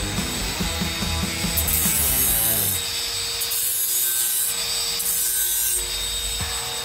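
Metabo cordless angle grinder with a flap disc grinding the sharp cut edge of a stainless steel chimney pipe to deburr it. The rasping grind comes and goes in patches as the disc is worked along the edge, over the steady whine of the motor.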